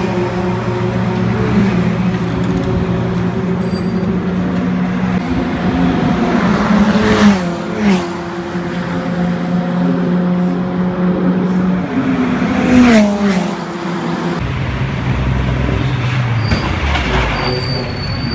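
VW Fun Cup race cars passing at speed, twice, each engine note dropping in pitch as it goes by, over a steady engine drone.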